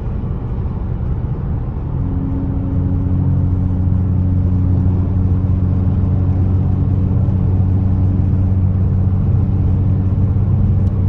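Dodge Challenger SXT's V6 engine and exhaust droning steadily while driving, a low hum that firms up and grows slightly louder about two seconds in, then holds even.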